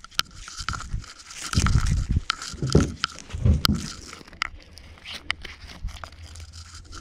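A wet gill net being handled over the side of a metal boat: the mesh crackles and scrapes with many sharp clicks. There are several dull low thumps about two and three and a half seconds in.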